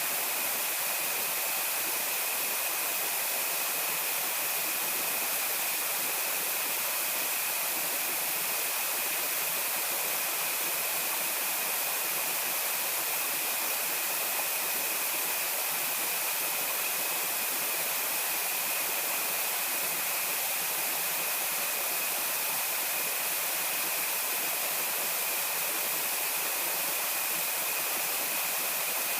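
Steady outdoor ambience: an even rushing hiss with a constant high-pitched whine running through it, unchanging throughout.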